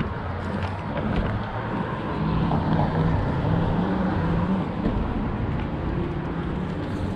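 Engine and road noise inside a moving vehicle's cabin: a steady low hum and tyre hiss, with the engine note shifting down and back up a few times.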